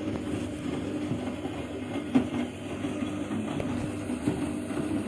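Siemens washing machine running, a steady rumble and hum from the turning drum and motor, with scattered knocks and a sharper knock a little over two seconds in.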